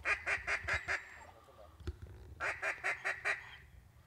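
Duck quacking: two quick runs of loud quacks, about five a second, each run lasting about a second, the second coming about two and a half seconds in.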